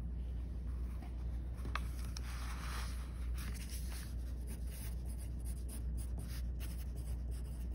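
Pencil scratching on sketchbook paper as words are handwritten in many short strokes, over a low steady hum.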